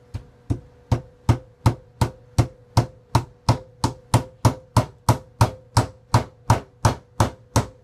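Claw hammer driving a nail through a catfish's head into a wooden board: a steady run of about twenty sharp blows, roughly three a second, the first couple lighter.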